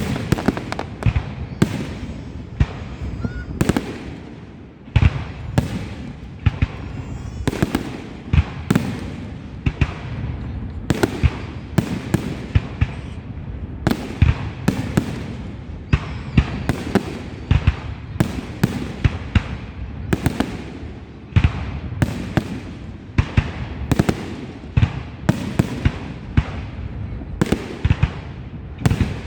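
Fireworks display heard at close range: aerial shells bursting one after another, several sharp bangs a second, over a constant rumble and crackle.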